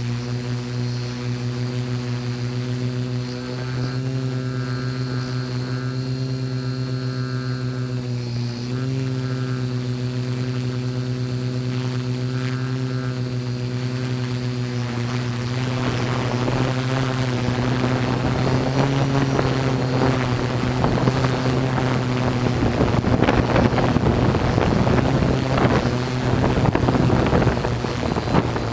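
Multirotor drone's propellers buzzing steadily, heard through its onboard camera, with a couple of small shifts in pitch. Wind noise on the microphone builds over the second half.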